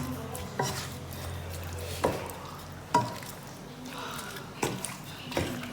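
About five separate sharp knocks and clinks of kitchen dishes and utensils, one of them ringing briefly, while seasoned chicken is being mixed in a bowl to marinate.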